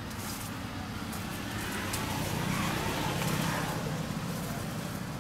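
A motor vehicle going by: steady road noise that swells to a peak about three seconds in, then fades.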